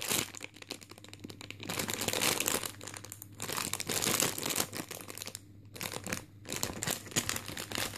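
Clear plastic packaging bags crinkling and rustling in fits and starts as the squishy toys sealed inside them are squeezed and handled, with a couple of brief lulls.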